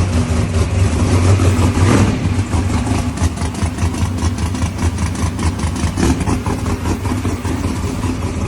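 Drag-race car's engine running at a choppy, lumpy idle, with brief throttle blips about two seconds in and again near six seconds.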